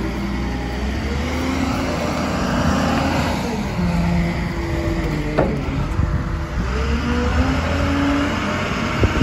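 Truck engine running, its pitch slowly rising and falling over a steady low rumble, with a short sharp sound about five seconds in.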